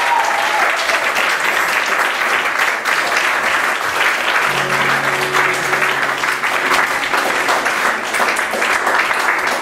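Audience applauding the end of a song, with a brief whistle at the start. A low steady tone comes in about halfway through.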